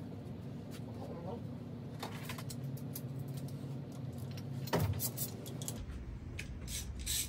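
Hand tools working on a bare engine block: scattered metal clicks and clinks, a heavier clunk about five seconds in, and a quick run of clicks near the end, over a steady low hum.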